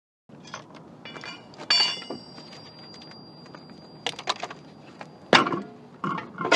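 Metal hand tools clinking and knocking together in a series of sharp strikes; one strike about two seconds in leaves a thin metallic ring that lasts a few seconds, and a louder knock comes near the end.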